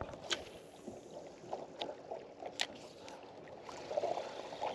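Small waves lapping against a skiff's hull, with a few sharp clicks as the spinning rod, reel and jig are handled.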